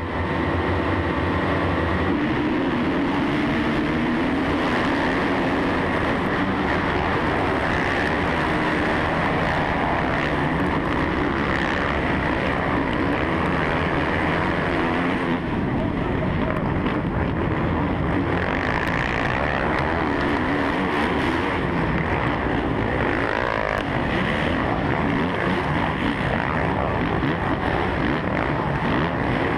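Suzuki RM-Z450 four-stroke motocross bike racing flat out among a pack of other motocross bikes, heard from a helmet-mounted camera: a loud, continuous engine racket with the other bikes' engines mixed in.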